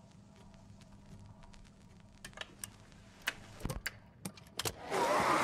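Record player's stylus running in the run-out groove after the music has ended: a faint low hum with scattered clicks and pops, a few sharper ones from about two seconds in. Near the end a loud steady rushing noise comes in abruptly.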